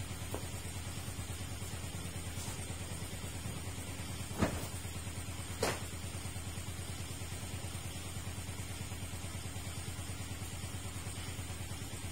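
An engine idling steadily, a low drone with a fast even pulse. Two short knocks come a little over a second apart near the middle.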